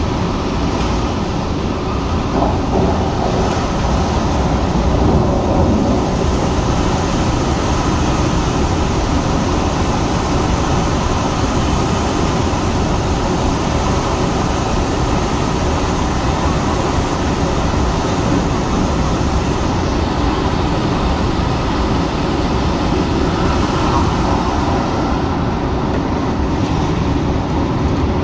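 MTR Tung Chung line CAF electric train running at speed: steady, loud wheel-on-rail running noise.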